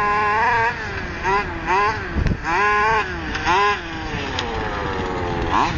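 Small two-stroke engine of a gas-powered RC Baja buggy being throttled up and down again and again, its pitch swooping up and back in quick blips, then sliding down in pitch for over a second near the end as it backs off.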